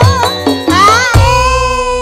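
Campursari band music: drum strokes under a wavering melody line that rises and then settles into one long held note as the phrase closes.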